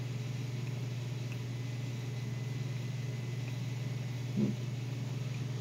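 A steady low hum, with a man's short grunt about four and a half seconds in.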